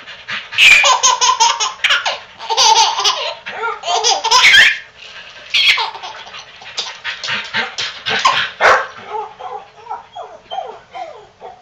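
Baby laughing in hearty belly laughs, fast choppy bursts of giggles, then quieter sounds after about nine seconds.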